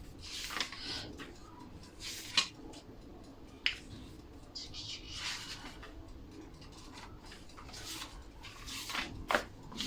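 Intermittent rustling and handling noises as kitchen ingredients and a recipe book are gathered and checked, with two sharp clicks or knocks, a little after two seconds in and again a little under four seconds in.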